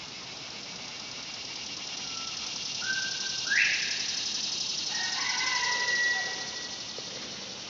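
Northern bobwhite whistling its 'bob-white' call about three and a half seconds in: a low whistled note, then a sharply rising slurred whistle. A longer, lower rooster crow follows a little later, over the steady high drone of cicadas.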